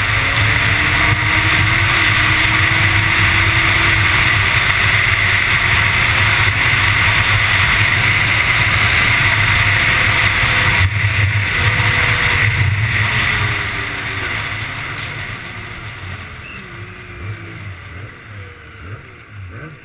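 Snowmobile running at high speed, its engine and rushing noise loud on a helmet-mounted camera. About two-thirds of the way through it eases off and the sound fades steadily as the sled slows.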